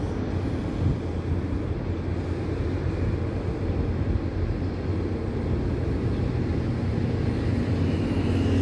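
Steady low engine hum over outdoor background noise, growing a little louder toward the end.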